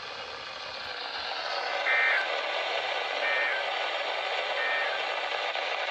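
Three short two-tone data bursts of the EAS/SAME end-of-message code from a NOAA Weather Radio broadcast, evenly spaced a little over a second apart, over steady radio hiss. They are the signal that closes the weekly test transmission.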